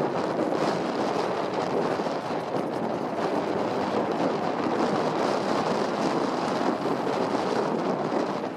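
Steady rushing noise of a moving vehicle, with wind blowing on the microphone.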